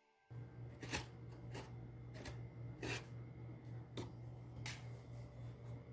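Hands handling soft chin chin dough: short soft slaps and rustles about once every half second to a second, over a steady low hum.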